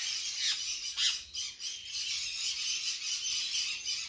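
Many small parrots calling at once in a dense, high-pitched chatter, with sharp downward-sliding calls about half a second and one second in.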